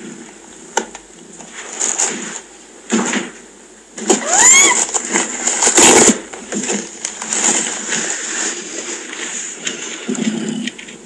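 A newborn kitten gives one short mew that rises and falls in pitch about four seconds in. Rustling and handling noises run around it and are loudest during and just after the mew.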